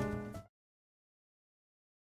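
Final held chord of jazz outro music dying away and stopping about half a second in, followed by dead silence.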